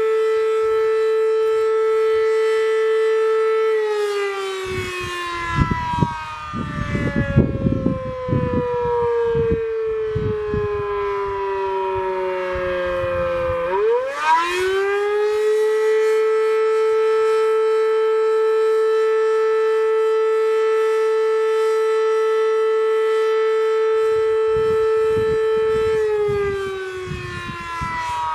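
Sterling 5VX fire siren running its attack cycle: a steady high tone that slowly winds down in pitch, then quickly spins back up about 14 seconds in, holds, and starts winding down again near the end. Low rumbling noise is heard while the pitch falls. This old siren runs well but is quiet for its kind.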